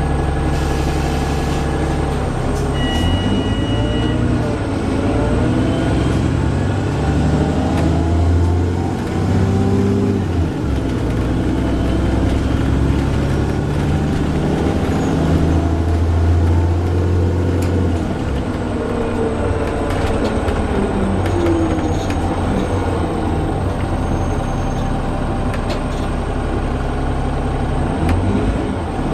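Wright Pulsar Gemini 2 double-decker bus on a VDL DB300 chassis running in service, with a loud low droning noise whose pitch steps up and down as the bus pulls away and changes gear. A brief two-tone beep sounds about three seconds in.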